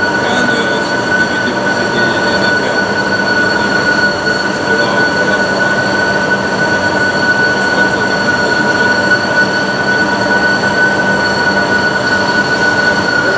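Dörries SD 600/6500 CNC vertical turning lathe running: a steady machine noise with a constant high whine that does not change pitch or level.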